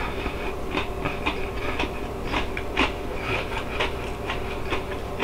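Close-up crunchy chewing of a battered, air-fried onion ring: irregular crisp crackles, a few a second.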